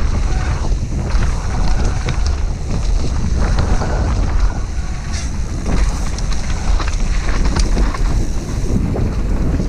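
Mountain bike descending a dry dirt trail at speed: wind buffeting the microphone, tyre rumble, and the bike's rattle, with frequent sharp knocks from bumps.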